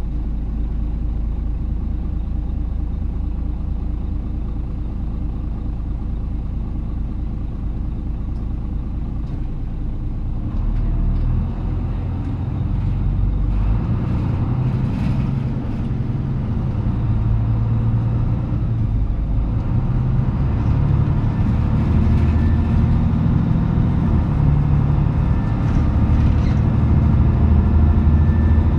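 Diesel engine of a KK-MJ26HF small route bus idling steadily, then about a third of the way in the bus pulls away. The engine note climbs and steps through several gear changes and grows louder as it accelerates.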